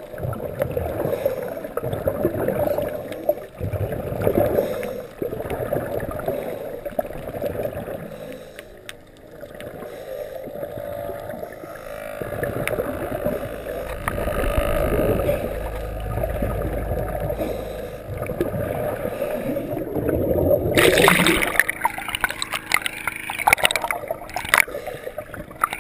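Muffled underwater rushing and gurgling of water moving past a GoPro in its waterproof housing as a diver swims. Near the end the camera breaks the surface and sharper splashing takes over.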